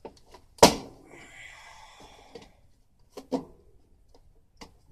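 A hard knock, followed by about a second and a half of scraping with a faint high ring, then a few lighter knocks: hand work on the plastic housing of an air conditioner, trying to pry and scrape stuck plastic off.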